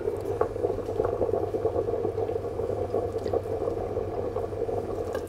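Large stainless steel pot of salted pasta water with penne at a steady rolling boil, bubbling evenly under a glass bowl set over it as a bain-marie, with a few faint clicks.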